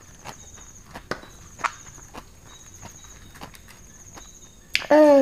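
Close-up eating sounds: chewing and crunching raw vegetables and salad, heard as scattered crisp clicks, over an insect trilling steadily in the background. Near the end a short, loud pitched sound like a voiced 'mm' drops in pitch over about half a second.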